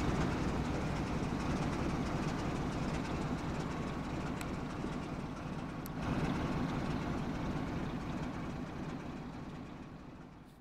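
A train running on the rails with a steady low noise, two light clicks about four and six seconds in; the sound fades out near the end.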